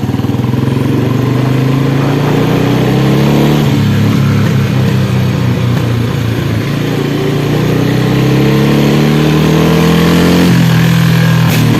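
2008 Royal Enfield Bullet single-cylinder engine running, its exhaust note climbing slowly in pitch for several seconds, then dropping back about ten and a half seconds in.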